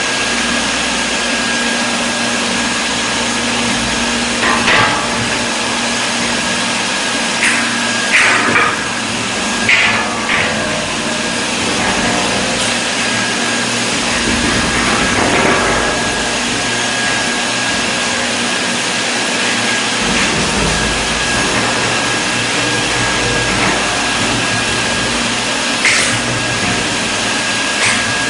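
Steady machine noise, a whirring hiss with a thin high whine running through it, broken by a few short clicks and knocks.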